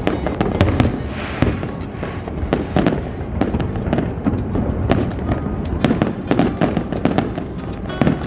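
Fireworks going off in quick succession: a dense run of sharp bangs and crackling pops.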